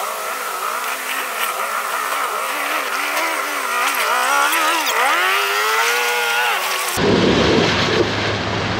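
Engine of a lifted off-road 4x4 revving up and down as it crawls down a rocky trail, its buzzing pitch rising and dipping over and over. About seven seconds in this changes to rushing river water over a low engine hum as a tube-framed rig fords the river.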